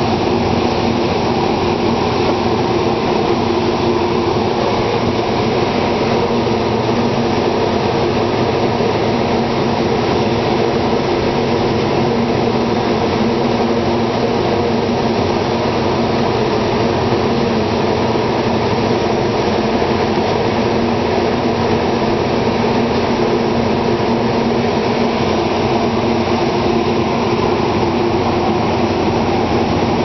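Steady engine-room machinery noise aboard a steam paddlewheel boat: a loud, even drone with several steady hum tones that holds level throughout.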